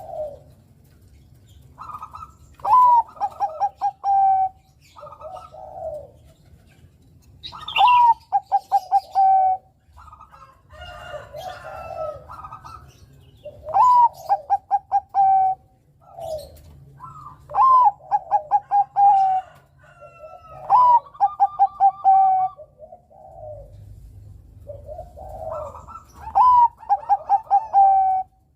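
Bangkok-bred zebra dove (perkutut) singing: about six loud cooing phrases, every four to six seconds, each a rising opening note followed by a quick string of short, clipped coos. Softer, lower coos fill the gaps between phrases.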